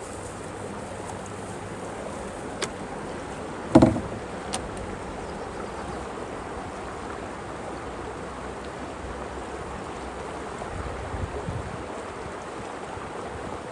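River water rushing steadily over a small rapid, with one sharp knock about four seconds in and a couple of lighter ticks around it.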